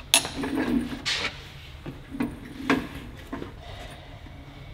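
Socket wrench breaking loose the tight cylinder head bolts of a Peugeot 309 GTI 1.9 engine: a sharp crack just after the start, then a few short creaking, grinding strokes of the tool and bolt.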